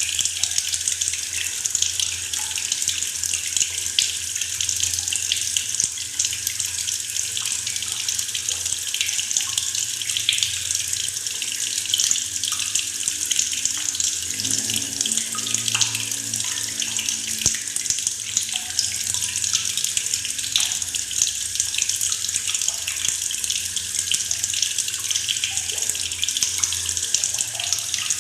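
Tap water pouring steadily into a bucket, splashing and gurgling without a break.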